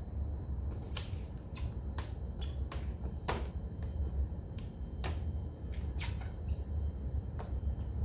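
A towel wiping down a car's door and window glass: irregular sharp clicks and short rubbing scrapes, about one or two a second, over a steady low rumble.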